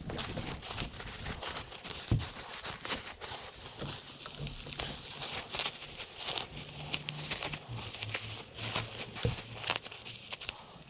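Plastic bubble wrap crinkling and rustling as it is pulled off a bicycle frame by hand, in dense irregular crackles.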